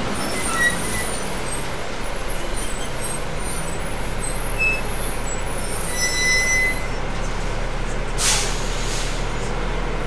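Inside a moving city bus: a steady engine drone and road noise, with high squeaks and rattles from the body and fittings. There is a short high brake squeal about six seconds in, then a hiss from the air brakes lasting about a second.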